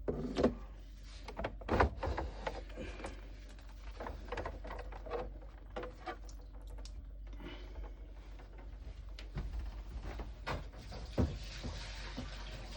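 Plastic knocks and clicks of a coffee machine's drip tray being slid out and handled, with a faint steady hiss in the second half.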